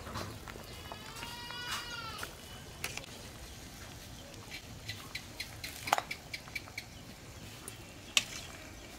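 One long animal call with an arching pitch, about a second and a half long, starts about a second in. Then come light clicks and clinks of a metal ladle against an aluminium cooking pot, the sharpest about six seconds in and again near the end.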